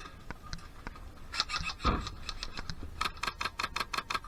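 Airsoft gunfire: two rapid full-auto bursts of sharp cracks, about ten shots a second, the first starting just over a second in and the second, tighter one about a second later, with a heavier knock in between.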